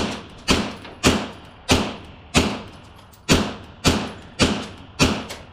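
Beretta M9A3 9mm pistol fitted with an Obsidian suppressor firing a string of nine shots, about two a second, with a slightly longer pause midway; each shot is a sharp crack with a short ringing tail.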